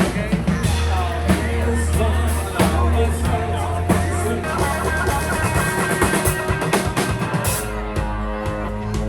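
Music with a drum kit beat, a heavy bass line and guitar.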